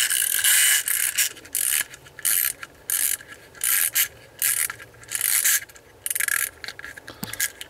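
Clockwork spring motor of a small plastic wind-up toy train being wound by hand: a ratcheting buzz in short repeated bursts, one for each twist of the winder.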